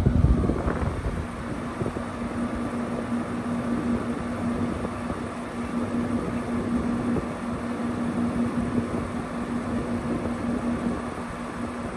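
2012 LG 6,000 BTU window air conditioner running and cooling: a steady hum under the even rush of air from its fan, with the unit blowing cold air at the vent.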